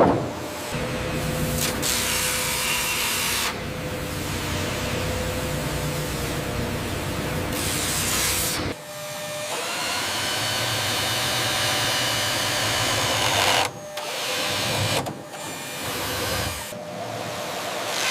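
Sawmill machinery running with a steady mechanical hum and whine. The noise changes abruptly several times, with short dips between stretches.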